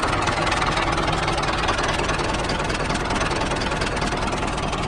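A mini tractor's small engine running steadily at idle, with a fast, even chugging.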